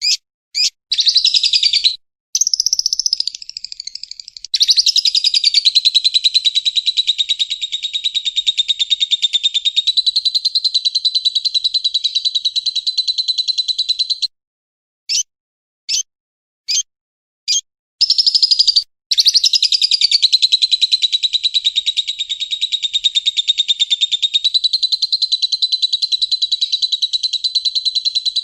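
Lovebird chattering in its long 'ngekek' song. A few single high chirps lead into a rapid, unbroken chatter held about thirteen seconds; it starts a little higher and settles, then stops abruptly. After a gap broken by single chirps, the same sequence repeats.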